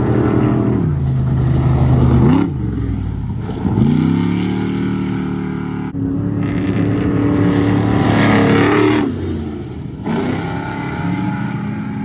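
Off-road race truck engines running hard past a jump, revving up and easing off several times, with a sharp rev and sudden drop about two seconds in and a quick rise again near four seconds.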